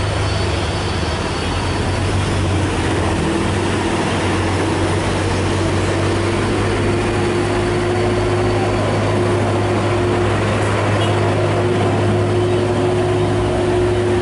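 Heavy diesel dump truck engines running under load, a steady low drone with a steady higher tone joining about two seconds in.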